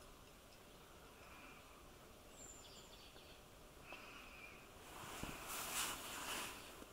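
Quiet outdoor ambience with faint short bird calls repeating every couple of seconds and one brief high chirp. About five seconds in, a hissing rustle lasting a second and a half is the loudest sound, opening with a small click.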